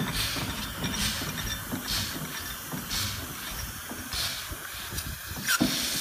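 Clayton & Shuttleworth stationary steam engine just started and running slowly: steam exhaust chuffs with hissing, about once a second, coming faster near the end.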